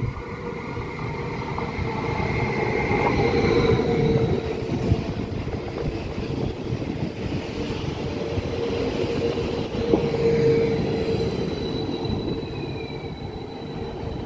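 Train running along the track: a steady rumble of wheels on rail under a held hum, with thin high squealing tones above.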